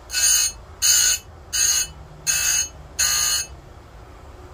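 Electric chainsaw-chain grinder: the spinning abrasive wheel is lowered onto a chain cutter tooth in five short grinding strokes, less than a second apart, with a low hum between them. The strokes are kept short so the tooth does not heat up.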